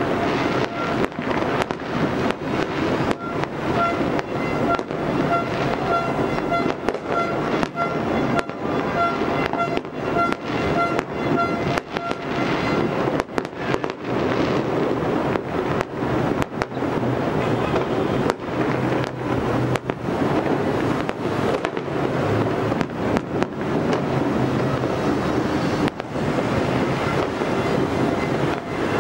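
Many fireworks and firecrackers going off across a city at once: a continuous crackle and rumble with frequent sharp bangs and no pause.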